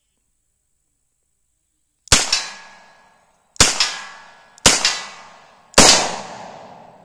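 Four shots from a Charter Arms Bulldog revolver in .45 Colt firing hand-loaded rounds, starting about two seconds in and spaced about a second apart. Each crack has a quick second, quieter report just after it, then a short fading tail.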